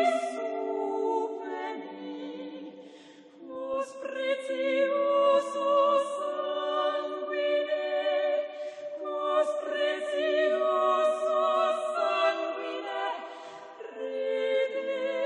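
Background music: a choir singing unaccompanied in long, sustained chords, with brief lulls about three seconds in and again near the end.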